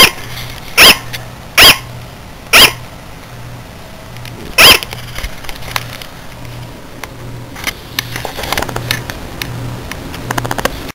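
Sugar glider barking: five short, sharp yaps, the first four less than a second apart and the last about two seconds later.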